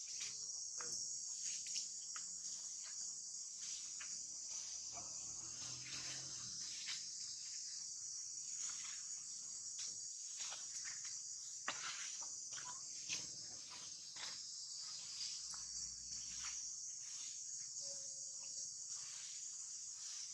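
A steady, high-pitched insect chorus, with scattered small clicks and knocks.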